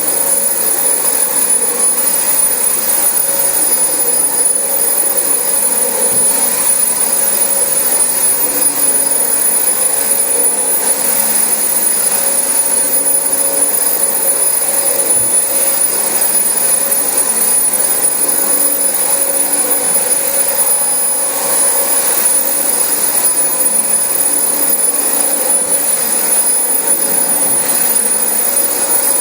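Dyson DC25 upright vacuum cleaner running steadily over carpet, a constant high whine over the rush of air.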